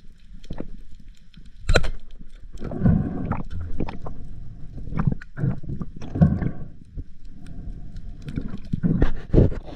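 Water sloshing and gurgling in uneven surges, heard muffled through an underwater camera housing, with a sharp click about two seconds in.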